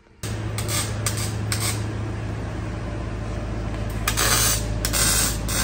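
A power tool working on a car's exhaust pipe: a steady buzz under a harsh hiss that surges several times. It starts suddenly just after the start and cuts off at the very end.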